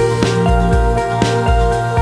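Background music with a steady beat, about two beats a second, over a held bass line and sustained melody notes.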